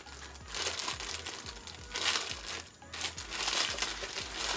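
Plastic chip packets, one of them a Lay's bag, crinkling in irregular bursts as they are handled and rummaged in.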